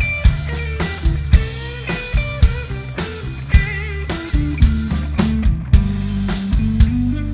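Rock band playing instrumentally: drum kit keeping a steady beat, bass holding low notes and electric guitar lines with vibrato.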